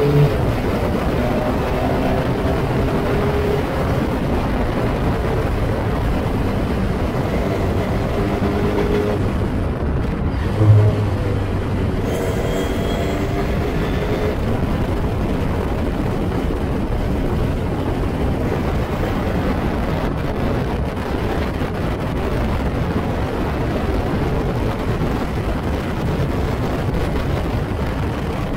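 Heavy wind buffeting on the onboard microphone of a Formula Ford single-seater at speed, with the engine heard faintly beneath it, mostly in the first few seconds and again around twelve to fourteen seconds in. A short low thump about eleven seconds in.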